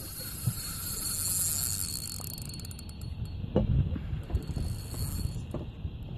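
Fishing reel's drag giving line as a big hooked fish runs: a high, ratcheting whir that breaks briefly a little after two seconds in, resumes, and stops about five seconds in. A few low handling thumps in the middle.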